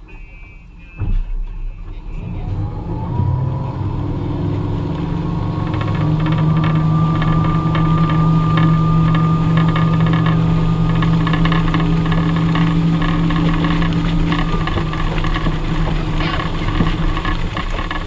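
Towboat engine throttling up hard to pull a wakeboarder out of the water, its pitch climbing over a few seconds and then holding steady under way, with water wash and wind on the microphone. A thump comes about a second in.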